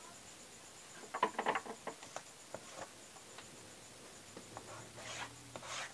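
Chalk on a blackboard as lines are drawn: a quick run of taps and scratches about a second in, a few scattered ticks, then two short scraping strokes near the end.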